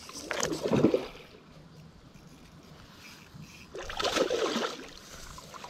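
A hooked fish splashing in the water at the landing net, in two bursts: one about a second in and another about four seconds in.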